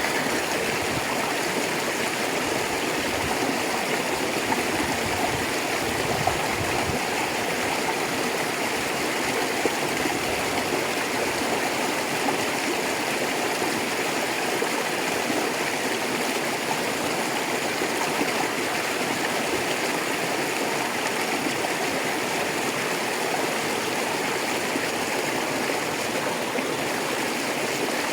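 Rocky river flowing steadily over stones, a constant rushing with light gurgling.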